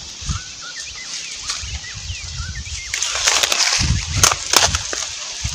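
Birds chirping, then from about three seconds in a loud crackling rustle in several surges as dry, dead banana leaves are grabbed and torn from the stem by hand.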